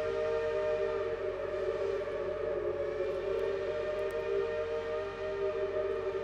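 Steam locomotive whistle held in one long, steady chord of several tones sounding at once.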